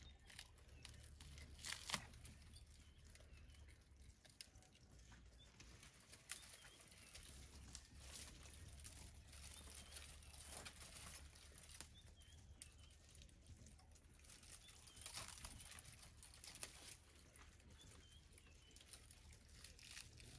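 Faint crackling and rustling of dry bark and branches as an African elephant browses, stripping bark from an acacia tree with her tusks. A few sharper cracks stand out, the clearest about two seconds in.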